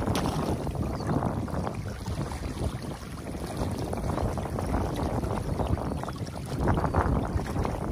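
Water rushing and churning through a breach in a beaver dam, with a heavy low rumble that suggests wind buffeting the microphone; it swells slightly about seven seconds in.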